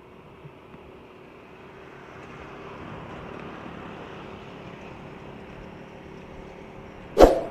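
Motorcycle engine running steadily at cruising speed with road and wind noise, growing a little louder about two seconds in. A short, loud burst cuts in near the end.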